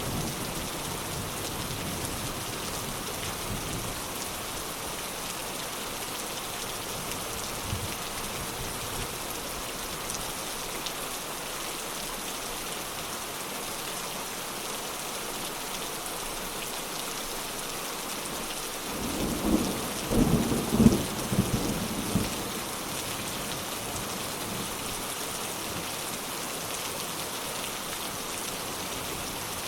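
Steady heavy rain hissing on surfaces, with a crackling clap of thunder about two-thirds of the way through that rumbles for roughly three seconds.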